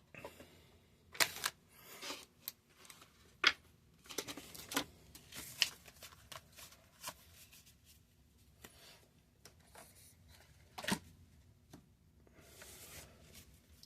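Trading cards being handled, stacked and sorted by hand: an irregular run of light slaps, clicks and rustles.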